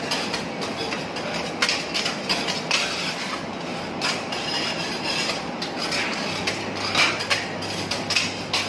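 Metal utensils clacking on a teppanyaki griddle in quick, irregular strikes, over a steady hiss.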